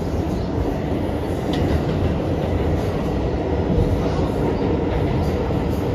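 New York City Subway R211A car in motion: the steady running noise of steel wheels on the rails and the running gear, heard from inside the car.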